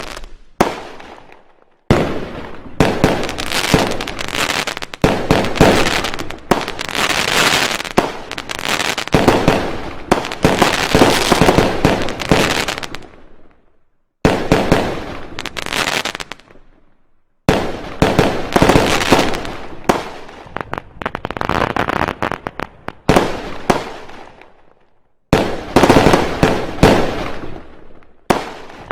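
Fireworks and firecrackers going off: long runs of rapid bangs and crackling, broken three times by brief lulls, each lull followed by a sudden restart.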